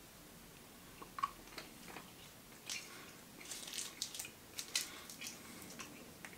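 Faint, scattered crinkles and clicks of a small wrapped fruit-chew candy being unwrapped by hand, busiest in the middle few seconds.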